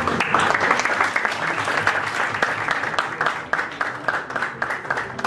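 Audience applauding, dense at first and thinning out to scattered claps over the last couple of seconds.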